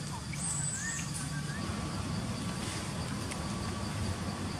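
Forest ambience: a steady low rumble with a few short, high-pitched chirps and whistles in the first second or so.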